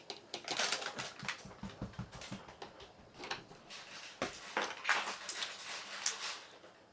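Small irregular clicks, taps and scrapes of an electronic deadbolt's parts and screws being handled during disassembly.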